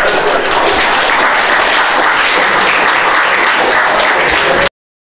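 Audience applauding, a dense, loud patter of many hands clapping that cuts off abruptly near the end.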